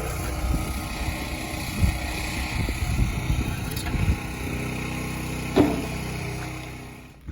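An engine running steadily, with a couple of sharp knocks, dying down near the end.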